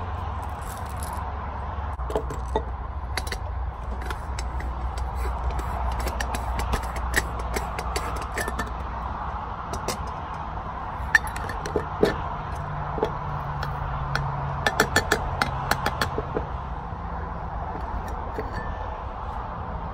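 Metal clicks, clinks and taps from handling a stainless hand coffee grinder and the aluminium parts of a moka pot, over a steady background hum. A quick run of sharp taps comes about three-quarters of the way through.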